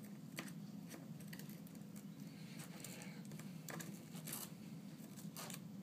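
Light, irregular clicks and short scrapes of a small tool working pieces of shattered glass and adhesive off an iPad 2's frame, over a steady low hum.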